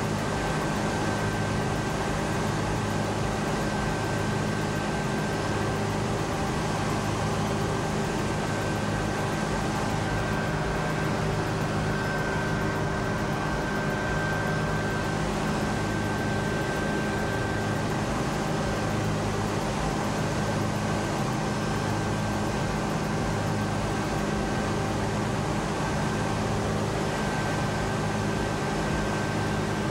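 A steady mechanical drone with several constant low hums and a faint steady whine above them; the lowest hum slowly swells and fades every couple of seconds.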